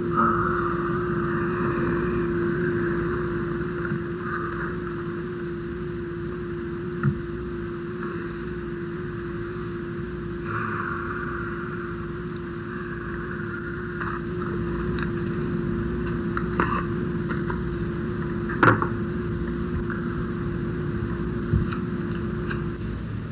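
A steady, engine-like drone: one held tone over a rumbling hiss, broken by a few sharp clicks, the loudest about three-quarters of the way in.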